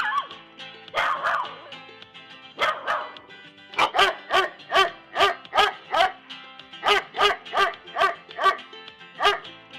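A dog barking over background music: a few spaced barks, then a rapid run of about six barks, then another run of about five.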